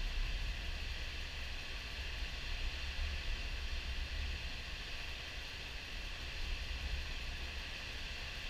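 Steady rushing roar of river water pouring over the spillway of the Boise River Diversion Dam at high flow, with a low rumble that comes and goes underneath.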